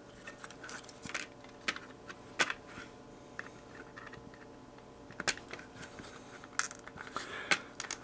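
Light, scattered clicks and taps of a circuit board and clear acrylic case parts being handled and fitted together, a few of them sharper than the rest.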